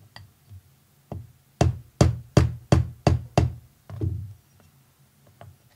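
Plastic-faced hammer striking a roll pin punch to drive the two-piece roll pins holding the firing pin out of a SIG P230 slide: one light tap, then six sharp hard taps at about three a second, and a softer last one.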